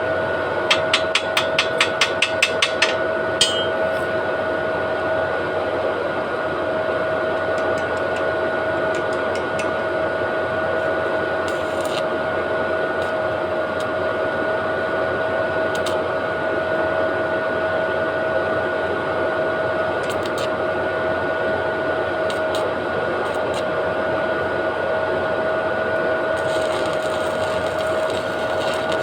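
Steady machine hum and hiss with two fixed tones. A rapid run of about ten sharp taps, roughly four or five a second, comes about a second in, with one more tap shortly after.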